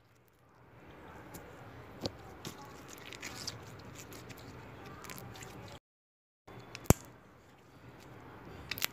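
Slime being stretched, dropped into a bowl and pressed with the fingers: faint sticky squishing with small clicks and pops. It breaks off into total silence for under a second about six seconds in, and a sharp click follows just after.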